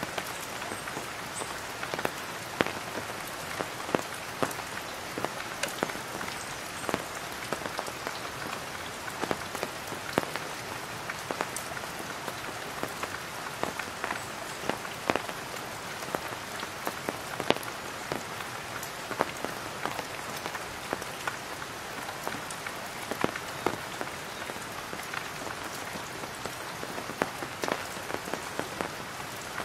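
Rain falling on a tarpaulin: a steady patter with many irregular, sharper individual drops tapping on the taut sheet.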